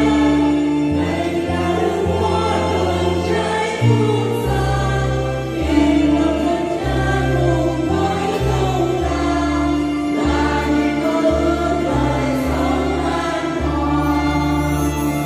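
Church choir singing a hymn with instrumental accompaniment, held accompaniment notes shifting about every second under the voices.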